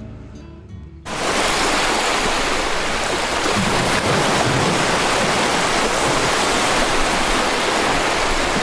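Recording of ocean waves, CapCut's "Waves (long)" stock sound effect, playing back as a steady wash of surf. It starts abruptly about a second in.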